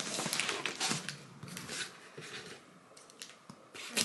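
Clear packing tape and a cardboard box being picked at and torn open by hand: scratchy crinkling and rustling, busiest in the first two seconds, with a sharp click near the end as scissors go in.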